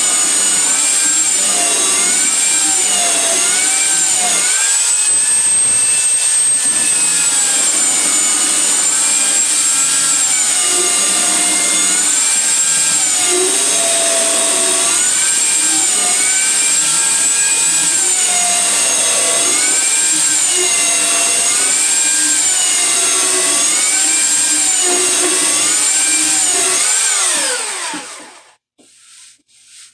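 Electric sander running on wood, its motor whine wavering down and up in pitch as it is pressed and moved over the surface. Near the end it is switched off and winds down with a falling pitch.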